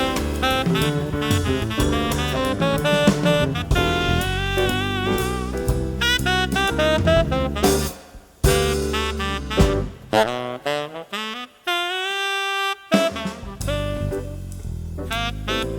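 Background jazz music with a saxophone melody over bass and drums; about three-quarters through, the band drops out while one note is held, then the groove comes back in.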